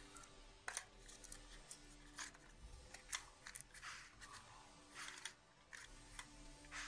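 Stiff paper crackling and rustling as fingers roll and press cut segments of a paper circle into cone-shaped petals: short, irregular crinkles, faint overall.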